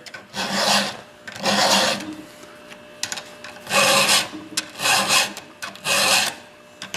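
A hand file rasping across a chainsaw chain's cutting teeth in even strokes while the chain is sharpened: two strokes, a short pause, then three more.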